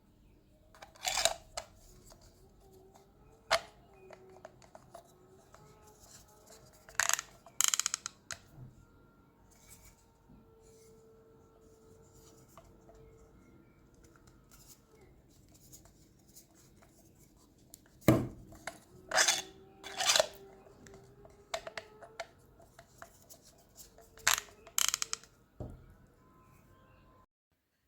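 Hard plastic clicks and short runs of rapid ratchet clicking from a 3D-printed airsoft suppressor replica being handled, its ratchet locking mechanism clicking as it is turned. The clicks come in separate bursts, several seconds apart.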